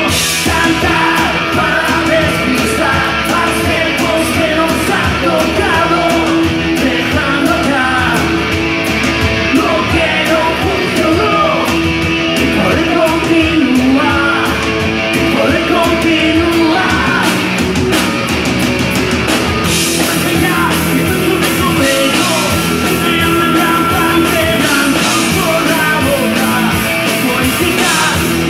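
Live rock band playing loudly: electric guitars and drums, with a male voice singing, heard from among the concert audience.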